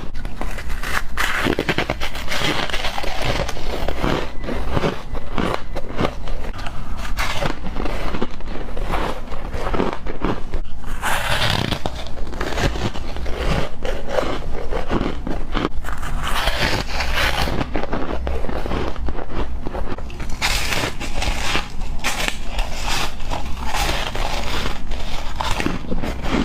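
Ice being bitten and chewed close to the microphone: dense, continuous crunching and cracking, with several louder bursts of crunch.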